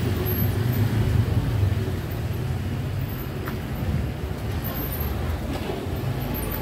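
Steady low rumble of city street ambience: distant traffic and general urban background noise.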